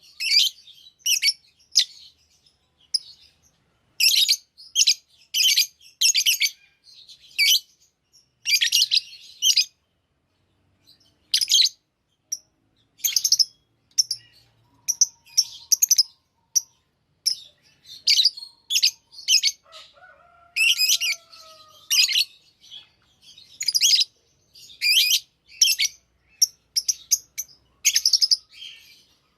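Small pet parrots, the kind kept as love birds, chirping in quick clusters of shrill calls with short gaps between them.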